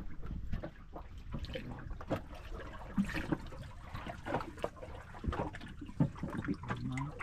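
Water splashing and trickling, with many small irregular knocks and drips.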